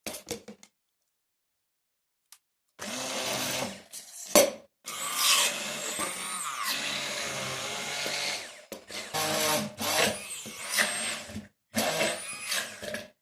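Hand blender motor pureeing whole boiled carrots, starting about three seconds in and labouring, its pitch sagging and recovering. In the last few seconds it runs in short bursts, switched on and off.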